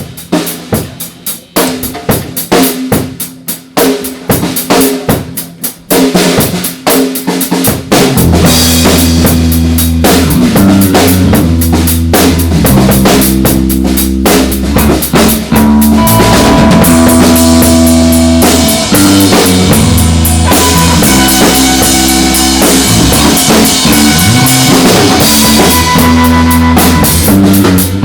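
Live improvised rock jam: a drum kit plays alone with separate kick and snare hits for about eight seconds. Then bass and noisy electric guitar come in and the full band plays on loudly.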